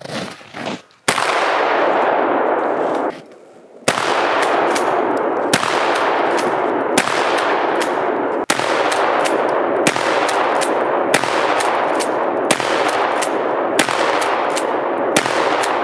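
Shotgun firing magnum slugs in quick succession, about ten shots roughly a second and a half apart, each followed by a dense rolling echo that barely fades before the next shot.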